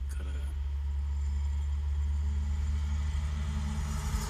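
A vehicle engine running with a steady, low hum that comes in abruptly right at the start and holds level.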